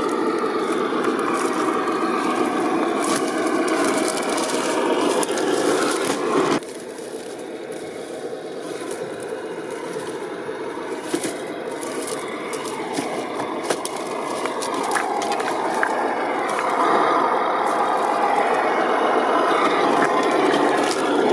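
A 1/10-scale RC crawler's 550 brushed electric motor and gearbox whining, rising and falling in pitch with the throttle, while its tyres scrape and crunch over loose rocks. The sound drops suddenly about six and a half seconds in, then builds back up.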